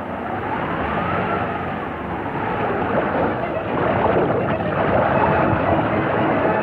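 Cartoon storm-at-sea sound effects on an early sound-film track: a rushing, noisy wind-and-waves wash with a whistling wind rising and falling in pitch about a second in, growing louder toward the end.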